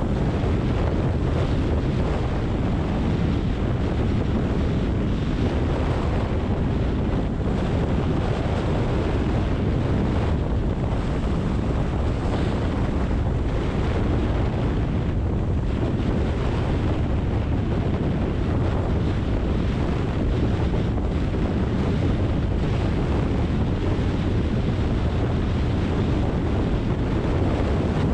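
Steady driving noise of a car on rain-wet city streets: a low road and engine rumble with tyre hiss, even throughout.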